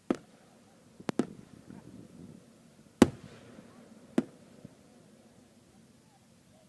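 Fireworks going off: five sharp bangs at uneven intervals, a quick pair just after a second in and the loudest about three seconds in.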